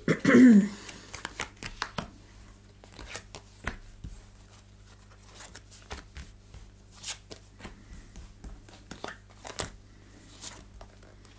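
Oracle Belline cards being drawn one by one from a fanned deck and laid on a cloth-covered table: light, irregular taps and slides of card on card and card on cloth. A low steady hum runs underneath.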